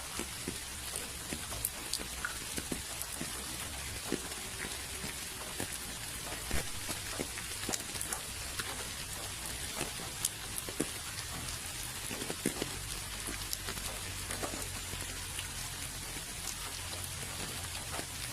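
Steady rain falling, a continuous hiss with many separate drops ticking sharply on a surface.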